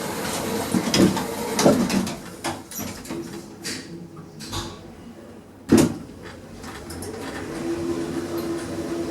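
Sodical car-park lift in operation: a few knocks and clunks, with one sharp thump about six seconds in, then a steady hum as the lift runs.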